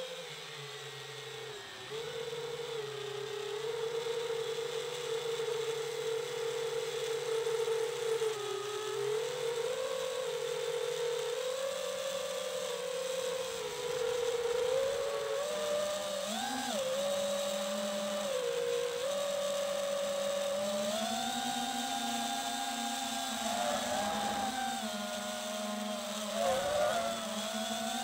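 FPV freestyle quadcopter's brushless motors and propellers whining, picked up by the onboard camera. The pitch shifts up and down with the throttle, getting louder about two seconds in and sitting higher through the second half, with quick brief jumps.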